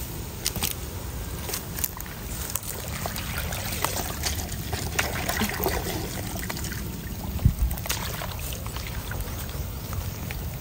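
Shallow muddy water trickling and sloshing as a plastic basket scoops and sieves through it, with scattered small clicks and a single heavier thump a little past halfway.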